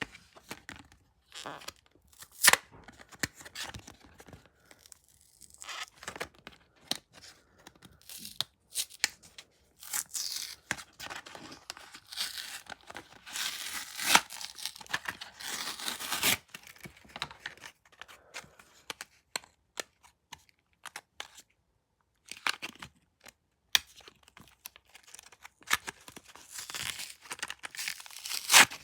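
Packaging being torn open and handled: irregular tearing and crinkling with scattered clicks and rustles, the longest stretches of tearing in the middle and again near the end.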